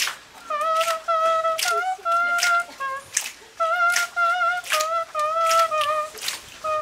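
A melody of held notes on a flute-like wind instrument, broken up by short, sharp, breathy hits between the notes.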